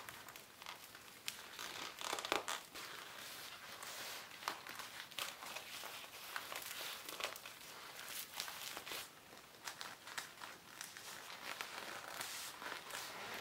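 Black leather uniform shirt rustling and crinkling as hands press and handle its pocket flap and collar, with scattered small creaks and clicks.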